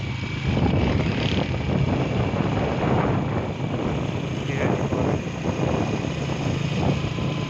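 Engine of a moving road vehicle running steadily, with wind and road noise rushing over it.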